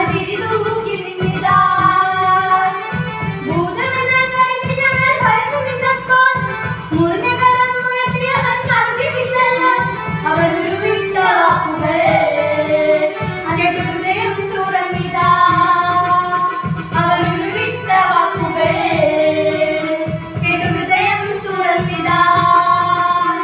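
Two girls singing a song together in unison over instrumental accompaniment with a steady low beat.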